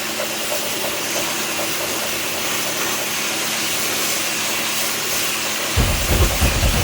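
High-pressure washer spray lance jetting water, an even hiss with a faint steady hum underneath. Near the end, drum beats from the soundtrack music come in.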